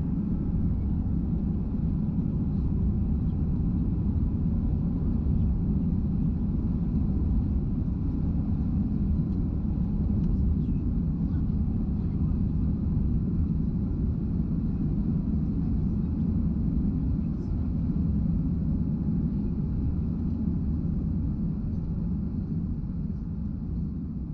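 Jet airliner cabin noise in flight: a steady low rumble of engines and rushing air heard inside the cabin, fading slightly near the end.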